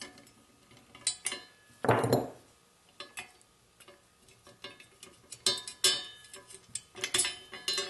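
Steel ratchet wrench and lock nuts clicking and clinking against the steel drill-point plate and ripper blade as the nuts are loosened and the blade is handled, in scattered bursts of small metallic taps with brief ringing.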